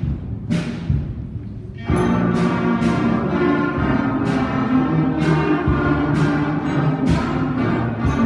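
School concert band playing: steady drum strikes alone at first, then about two seconds in the full band of brass and woodwinds comes in with sustained notes over the continuing drum beat.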